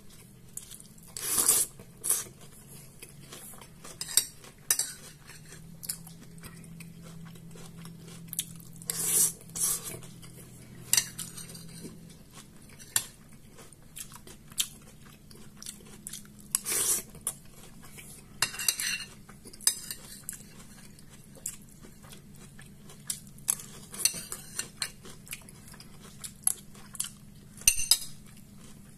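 Metal fork scraping and clinking on a ceramic plate in irregular strokes, with a few longer scrapes, along with close chewing and the crunch of toasted bread. A faint steady low hum runs underneath.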